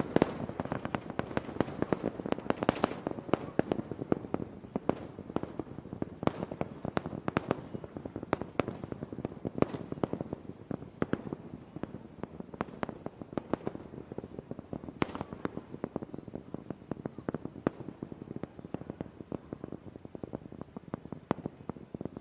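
Rocket exhaust from Starship's Super Heavy booster and its 33 Raptor engines during ascent: a dense, irregular crackling and popping that slowly fades.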